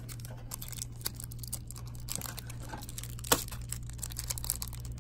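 Foil wrapper of a football trading-card pack crinkling and crackling as fingers pick at it and tear it open, with one sharper crack about three seconds in, over a low steady hum.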